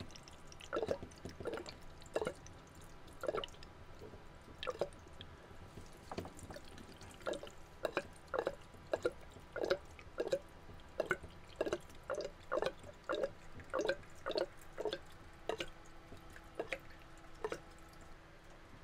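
Diesel poured from a jerry can into the clear bowl of a Racor fuel filter, topping it up: a run of short liquid plops, about one or two a second.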